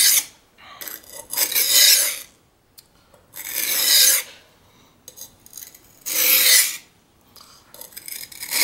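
Carbon-steel knife blade rasping across the wet, coarse 220-grit side of a Norton whetstone in long push strokes, about four strokes two seconds apart with short pauses between, reprofiling the edge to about 20 degrees.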